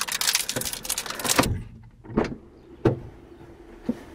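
A burst of rustling noise that stops abruptly, then three sharp clicks and knocks from a car door and cabin as the driver gets in.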